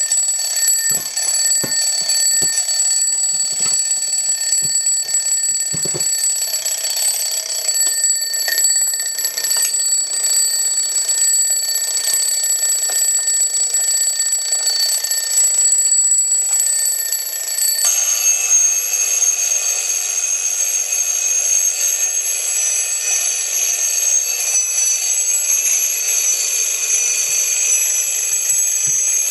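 Several alarm clocks ringing at once, a loud, steady, high-pitched jangle of bells that does not let up. About 18 seconds in, the mix of pitches changes abruptly.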